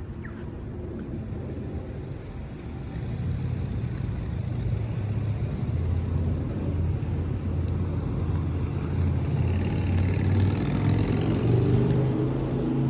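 A motor vehicle's engine in street traffic, growing louder as it approaches. Its pitch rises near the end as it speeds up.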